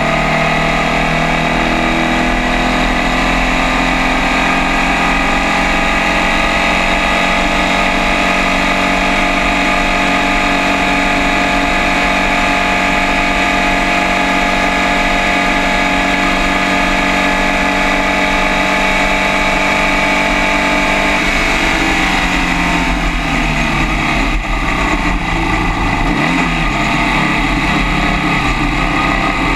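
Formula First race car's air-cooled Volkswagen engine heard on board, held at steady high revs down the straight. About two-thirds of the way in the revs drop as it slows for a corner, then rise and fall through the turn, with wind rushing over the open cockpit.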